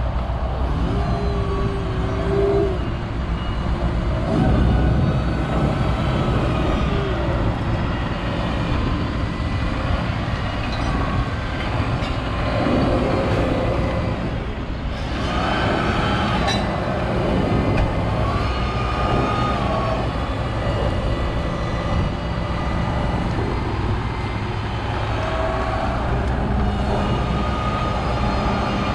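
Tractor engine running steadily under load, a low drone with occasional brief whines rising over it.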